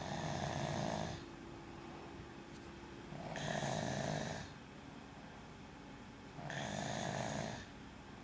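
A person snoring: three long snores about three seconds apart, each lasting about a second, with quiet breathing between them.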